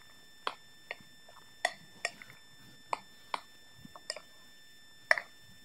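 A utensil knocking against a mixing bowl while a salmon cake mixture is stirred: about eight sharp clicks at uneven spacing, the loudest one near the end.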